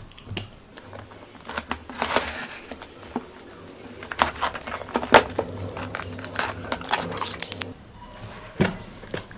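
Box cutter slitting the packing tape on a cardboard parcel: a run of scratchy cutting strokes and sharp clicks against the cardboard, with a low steady hum underneath.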